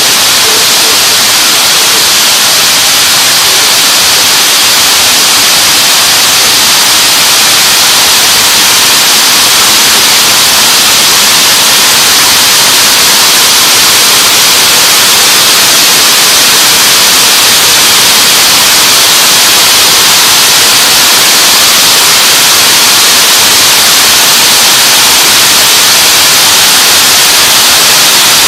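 Rows of bobbin braiding machines running together: a loud, steady, even din, strongest in the high range, with no separate beats.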